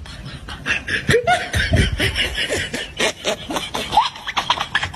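People laughing in rapid short bursts, with a few squealing notes that rise in pitch.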